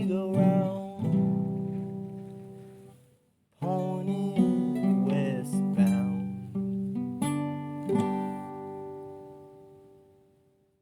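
Acoustic guitar strumming chords: the closing bars of a song. It breaks off briefly about three seconds in, starts again, and ends on a last chord that rings out and fades.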